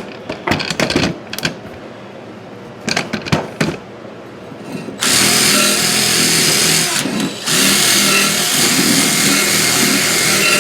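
A few knocks and clicks of handling, then, about halfway through, a drill-mounted wire wheel starts scouring corrosion off a steel lawn tractor wheel rim. It is a loud, steady, harsh whirring scrub that dips briefly once before carrying on.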